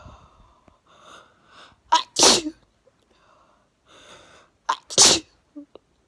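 A person sneezing twice, about three seconds apart. Each sneeze follows a breathy in-breath and comes as a short sharp catch, then the main burst. The sneezes are brought on by sniffing chhinkni, a sneeze-inducing herbal powder, while congested with a cold.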